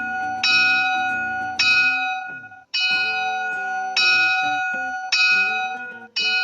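A bell struck again and again, about once a second, six times. Each stroke rings out with a clear tone and bright overtones and fades before the next.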